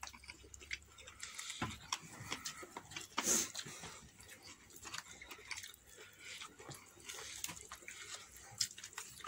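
Close-up eating sounds: chewing and lip-smacking on fried chicken, with small crackles of the crispy breading and flatbread as they are torn by hand. One louder noise about three seconds in.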